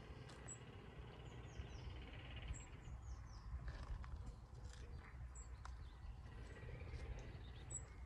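Faint open-country ambience: small birds chirping, with short high falling notes in quick runs of three, over a low steady rumble.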